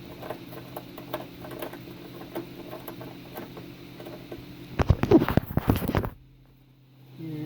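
Hands working on a range hood: scattered light clicks and taps of handling parts and tools over a steady low electrical hum. About five seconds in comes a burst of louder rattling and clattering for about a second, then the sound drops away suddenly to a brief hush before the hum comes back.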